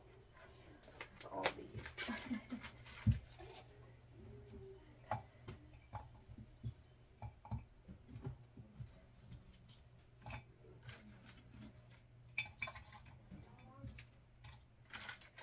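Small objects being handled and set down on a dresser top: scattered light clicks and knocks, with one sharper knock about three seconds in.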